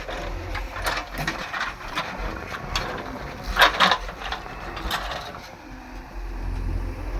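JCB backhoe loader at work: irregular metallic clanks and knocks from its moving arm and bucket, the loudest cluster about three and a half seconds in, over a low engine hum.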